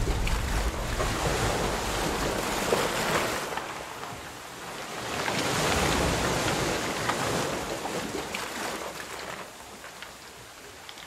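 Sea waves breaking and washing back, in slow surges that swell and ease a few seconds apart and grow fainter near the end.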